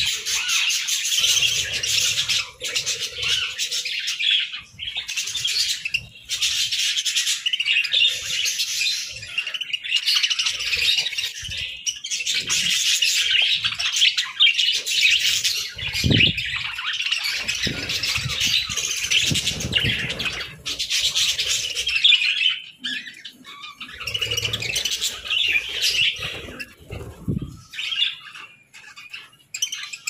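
A flock of budgerigars chirping and chattering continuously in a busy, overlapping warble, with a few short lulls. Low wing flutters come and go near the middle and toward the end as birds flap between perches.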